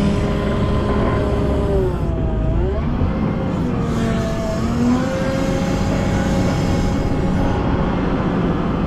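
Volvo L90F wheel loader's diesel engine running under load while clearing snow. Its pitch dips and recovers about two to three seconds in, and rises again a couple of seconds later as the revs change.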